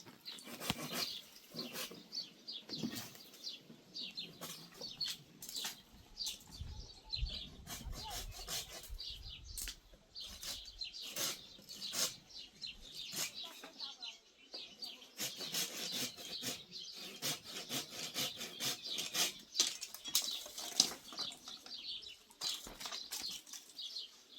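Small birds chirping over and over in quick, high, downward-sliding notes, with scattered sharp knocks and a brief low rumble partway through.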